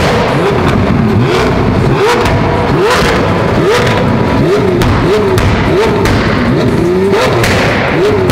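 Lamborghini Aventador SV's V12 through a Fi Exhaust, revved hard again and again in free rev: each rev rises and drops back, about one and a half a second. Sharp exhaust cracks come as the revs fall, as the car shoots flames.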